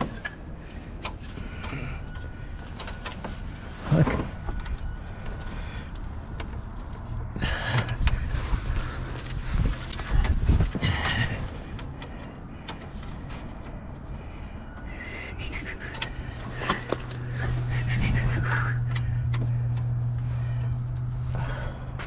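Hand tools clicking and knocking against metal parts during work on a car's front end, with a sharp knock about four seconds in and a busier stretch of clatter around eight to eleven seconds. A steady low hum comes in about sixteen seconds in and holds to the end.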